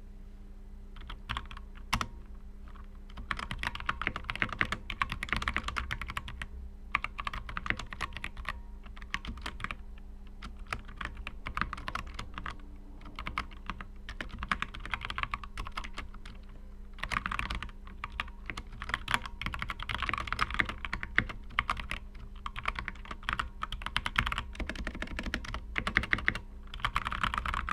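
Typing on a GMMK mechanical keyboard with stock, unlubricated Halo Clear tactile switches under Flashquark OEM-profile keycaps: quick runs of clacking keystrokes in bursts of a few seconds, with short pauses between.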